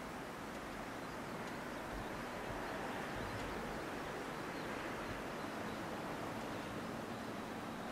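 Steady outdoor ambience in open farmland: a low, even rushing noise with no distinct events.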